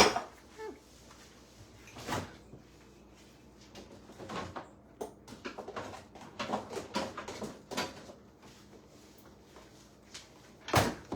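Kitchen handling sounds: scattered knocks, clicks and clatters as things are moved about, with a louder knock about two seconds in, a run of small clicks in the middle, and another loud knock near the end.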